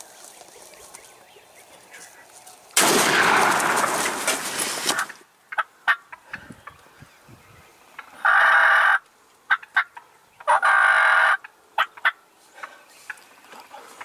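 Wild turkey toms gobbling close by: three loud gobbles, about three seconds in, eight seconds in and ten and a half seconds in, with a few faint clicks between them.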